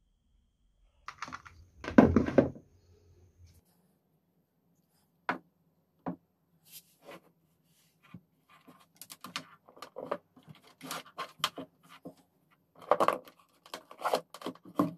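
Hands handling cordless tool batteries, battery-powered soldering irons and their cables on a wooden table: a loud knock about two seconds in, then scattered plastic clicks, knocks and cable rustling over a faint steady low hum.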